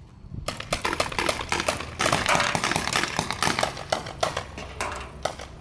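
Paintball markers firing, a rapid, irregular run of sharp pops from several guns that grows denser about two seconds in.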